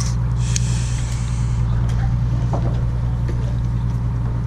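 Steady low drone of a fishing boat's engine running, with a brief hiss shortly after the start.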